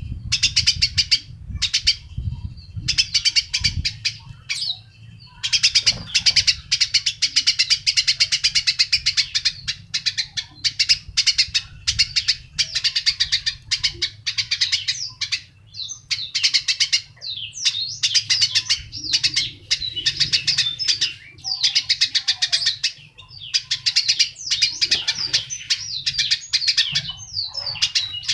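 A songbird singing in long, rapid trilled phrases of fast repeated notes, each phrase a second to several seconds long, with short pauses between them.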